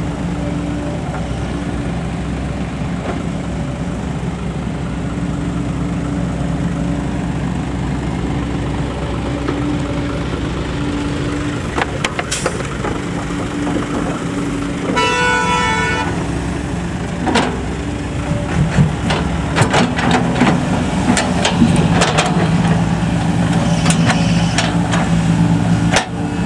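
Dump truck diesel engines idling steadily, with one horn blast of about a second near the middle. Sharp clicks and knocks come in the last third.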